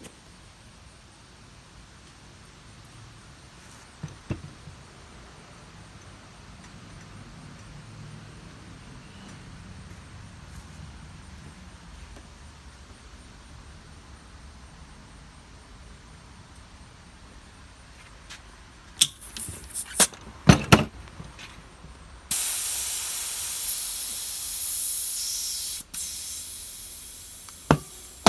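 Tubeless road bike tyre: a few loud, sharp pops, then a sudden loud rush of hissing air that tapers off over about five seconds, typical of a tubeless tyre being inflated and its beads snapping onto the rim.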